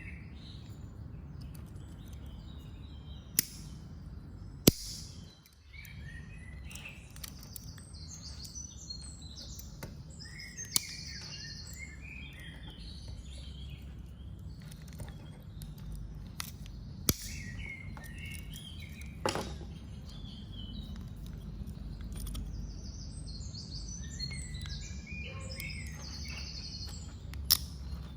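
Small birds chirping and twittering on and off over a steady low rumble, with five sharp clicks spread through.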